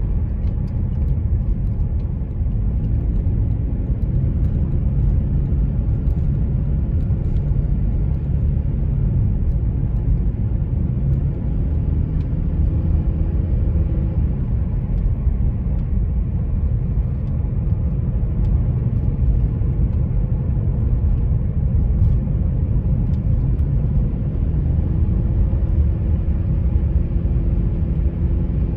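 Car driving noise: a steady low rumble of road and engine. A faint engine note drifts in pitch and grows a little stronger near the end.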